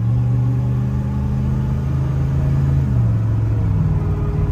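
A pickup's 5.9-litre gas V8 pulling under acceleration, heard from inside the cab. Its note dips about three seconds in and then climbs again. The engine has just had new spark plugs and wires, and the driver feels it running smoother.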